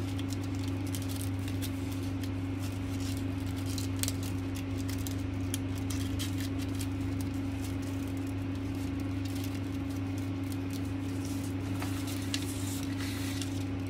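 Satin and glitter ribbon being handled and pulled through braid loops, giving light rustling and scattered small clicks over a steady low hum.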